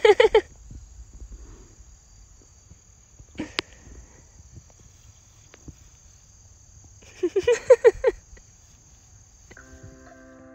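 Field insects chirring steadily at a high pitch over a pasture. A person's voice breaks in with quick runs of short pitched bursts, like laughter, right at the start and again about seven seconds in. A single faint knock comes about three and a half seconds in.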